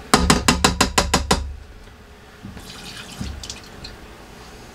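A quick run of about eight sharp taps in the first second and a half as the last of the hot sauce is knocked out of a measuring cup into an Instant Pot, followed by a few faint clinks.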